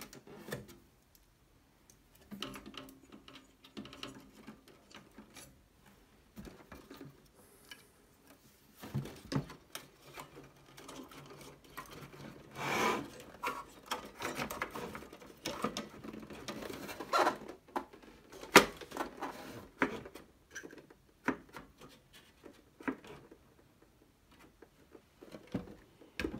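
Hands handling the wiring and plug-in connectors on an open CRT monitor's circuit board as they are reconnected: scattered small clicks, taps and rustles, with a longer rustle about halfway and a sharp click about two-thirds of the way through.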